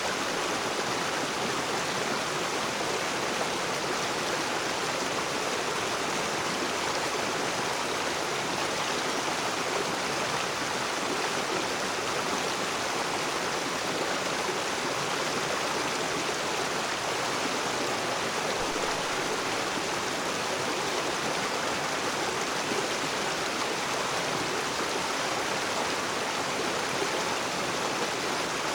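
River water rushing over rocks: a steady, even rush with no change.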